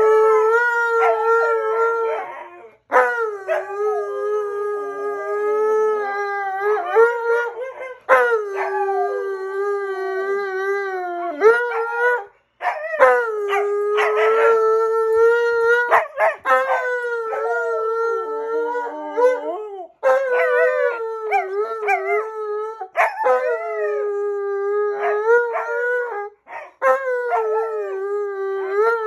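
An Alaskan Malamute and a Siberian Husky howling together in about eight long howls, each held on a fairly steady pitch for three to five seconds with short breaks for breath between. The two voices sometimes overlap.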